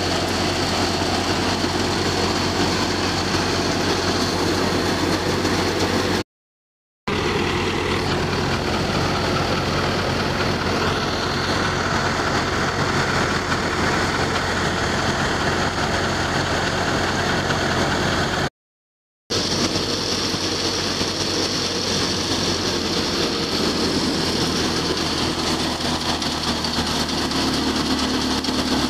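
Tractor-powered chickpea thresher running steadily: the tractor's diesel engine holds a constant speed while it drives the thresher through a belt pulley. The sound cuts out completely twice, briefly, about six seconds in and again about two-thirds of the way through.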